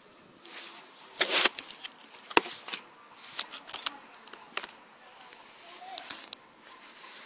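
Handling noise: scattered sharp clicks and taps with short bursts of rustling and scraping, the loudest a scraping rattle about a second and a half in.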